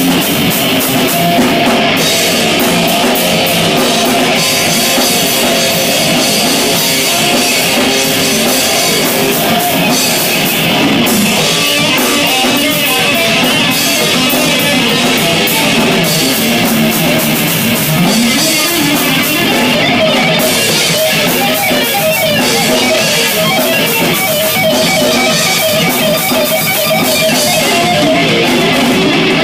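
Live deathgrind band playing: heavily distorted electric guitars and bass over a drum kit, loud and continuous, with the cymbals dropping out briefly a few times.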